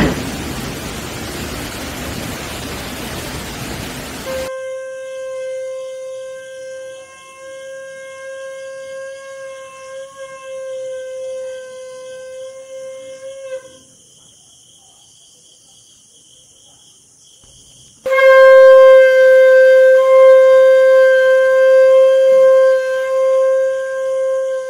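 A steady hiss, then a long horn-like note held at one pitch, sounded twice: about nine seconds, a pause of about four seconds, then a louder second blast of about seven seconds.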